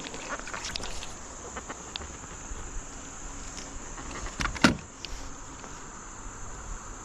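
Insects droning steadily at a high pitch, with a few light clicks in the first two seconds and a louder knock about four and a half seconds in.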